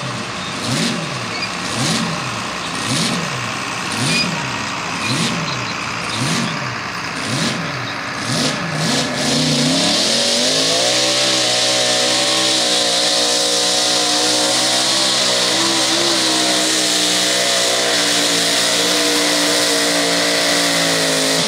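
Mini rod pulling tractor's engine revved in quick repeated blips, about one and a half a second, while staged at the line. About ten seconds in it goes to full throttle and holds a high, steady pitch as it pulls the sled down the track.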